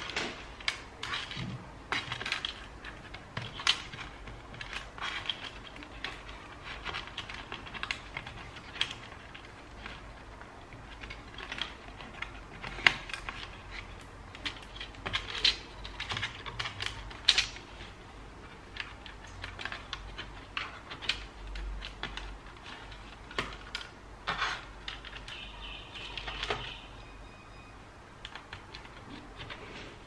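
Irregular small clicks, taps and crinkly rustles of hands working inside an opened ThinkPad T430 laptop, handling its thin cables and plastic and foil parts.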